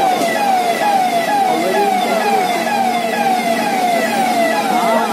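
Electronic siren sounding a quick falling tone over and over, about two sweeps a second, over a steady hum.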